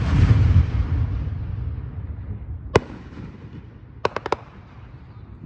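Aerial fireworks going off. A deep boom at the start rumbles and fades over about two seconds, then a single sharp bang comes near the middle and four rapid bangs come about four seconds in, as a cluster of small gold shells bursts.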